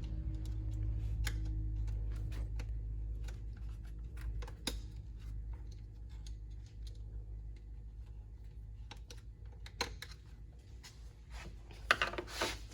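Scattered small clicks and ticks of hands fitting a breather filter onto a valve cover port and tightening it, with a quick run of louder clicks near the end. A low hum fades out over the first few seconds.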